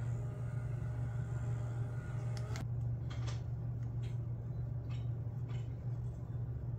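Steady low hum, with a few faint soft taps in the middle.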